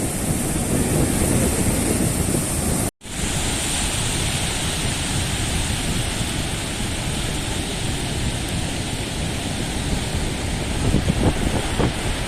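Wind buffeting the microphone over the wash of Mediterranean sea waves, a steady noisy rush. The sound cuts out for an instant about three seconds in.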